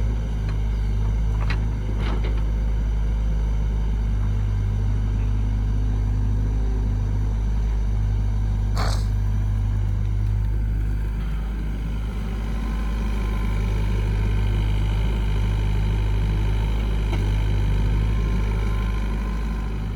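Heavy machine's engine running steadily with a low drone, with a few short knocks or clanks, the sharpest about nine seconds in.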